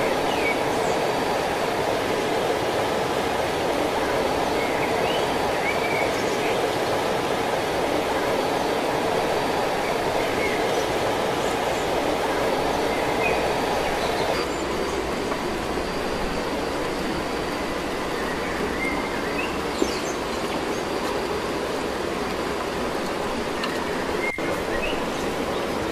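Steady rushing of a waterfall, with a few faint, short high chirps over it; the rush drops slightly about halfway through.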